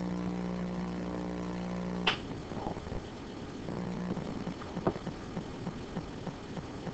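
A steady buzzing hum that cuts off with a sharp click about two seconds in. After it comes faint room noise with a few light taps.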